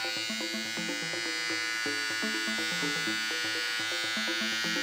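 Philips BT1214 rechargeable beard trimmer running with a steady buzz as it is drawn over the hair on the back of a hand, with background music underneath.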